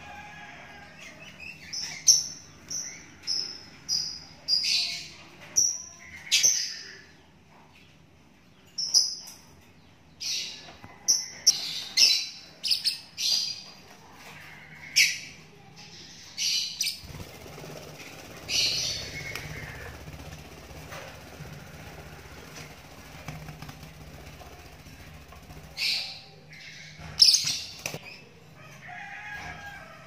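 A lovebird chick about 24 days old calling with short, shrill chirps, many in quick succession through the first half and a few more later, the loudest near the end.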